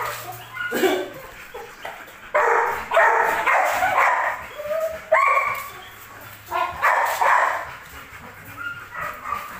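Belgian Malinois barking and yelping: a run of about five or six short calls with gaps between them, some rising in pitch.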